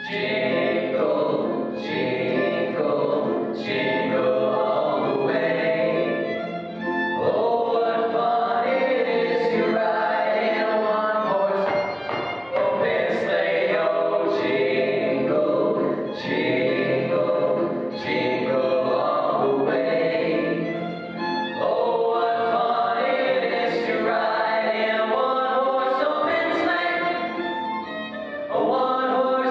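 A small group of male voices singing in harmony, a jazzy arrangement of Christmas songs, with short accents recurring about every two seconds.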